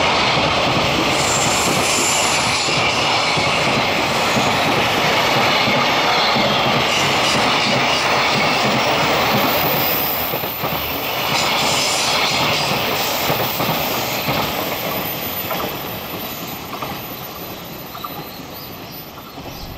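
Container wagons of a freight train rolling past at speed, wheels running on the rails. The sound is steady, then fades from about ten seconds in as the tail of the train goes by.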